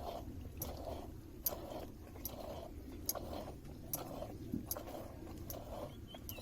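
Milk being drawn from a buffalo's udder in a regular rhythm, a little over one short stroke a second, each with a sharp wet click.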